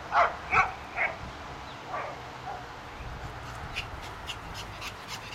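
Japanese Chin puppy yapping at play: four sharp yaps in the first two seconds, then a fainter one.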